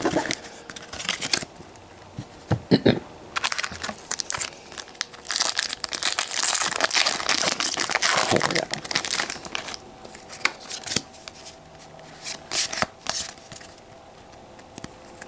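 Foil wrapper of a Pokémon trading card booster pack crinkling and tearing as it is pulled open by hand, the crackling densest and loudest in the middle, then thinning to scattered small rustles near the end.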